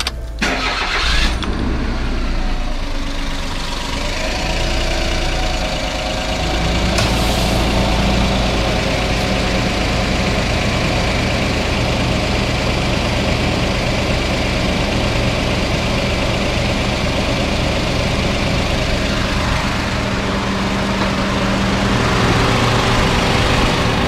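Mazda AZ-Wagon's 660 cc three-cylinder engine starting on the key and settling into a steady idle. The running sound grows fuller a few seconds in.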